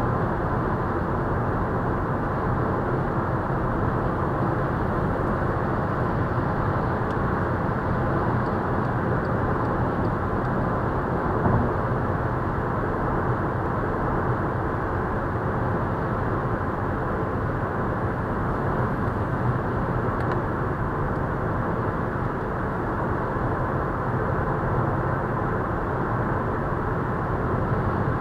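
Steady tyre and wind noise heard inside a Volkswagen Scirocco's cabin while cruising at motorway speed, with one brief bump about eleven seconds in.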